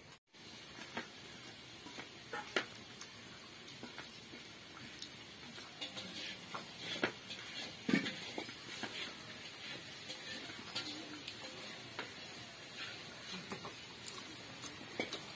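Hand mixing rice and small-snail curry on a steel plate: soft wet squishing with many scattered light clicks and taps against the plate, a few a little louder.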